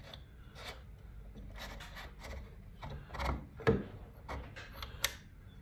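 Hands fitting a sprocket back onto a garage door opener's drive shaft: faint, scattered clicks and rubbing of the parts, with a few louder knocks a little past halfway.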